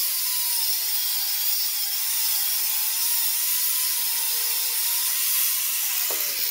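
Angle grinder with a cut-off disc running under load, cutting through a steel-wire-braided rubber hydraulic hose: a steady grinding hiss over a motor whine that wavers as the disc bites. The whine drops in pitch about six seconds in as the grinder comes off the cut.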